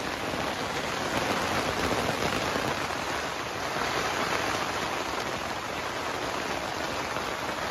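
Heavy thunderstorm rain pouring down steadily, heard from just inside a tent's open doorway.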